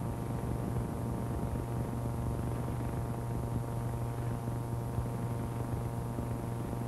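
Steady low hum and hiss of an old film soundtrack, with no other sound standing out.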